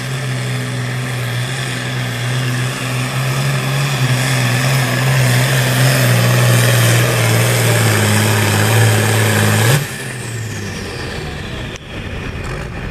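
Diesel engine of a red International Harvester hot-farm pulling tractor running flat out under load as it drags a weight-transfer sled: a loud, steady drone that holds its pitch and grows louder. About ten seconds in it is throttled back abruptly at the end of the pull, and a high whine sinks in pitch as the engine winds down.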